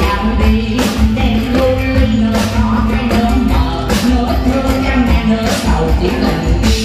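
Amplified stage music with a steady beat, and a singer singing into a microphone over it.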